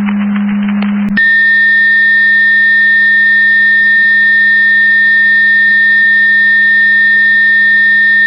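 Fire dispatch radio sending a long, steady, high alert tone that starts about a second in, after a moment of radio hiss, over a constant low hum.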